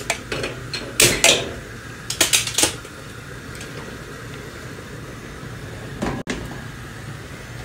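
A few sharp knocks and clatters of a cooking pot of uncooked rice being handled, in the first three seconds, then a steady low hum.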